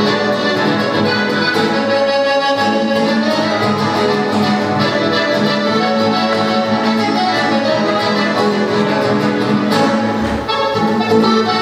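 Live Latin American instrumental music from a trio, sustained melodic notes held over a steady low note, with a brief dip near the end.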